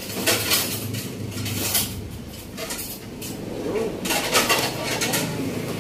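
Long-handled metal ladle scraping and clinking against a metal wok while stirring a thick chicken and vegetable stew, in short bursts near the start, about a second and a half in, and around four seconds in.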